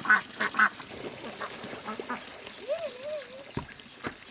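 Ducks quacking: a quick run of short quacks at the start, then scattered softer calls and a wavering call near the end.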